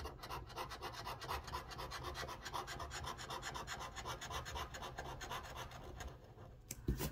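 Small metal scratching tool scraping the coating off a lottery scratch-off ticket in a fast run of short, even strokes, which stops about six seconds in. A few light clicks follow near the end.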